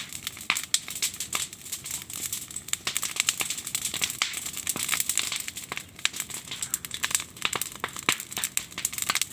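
Campfire of firewood and branches crackling: many sharp irregular pops and snaps over a steady hiss.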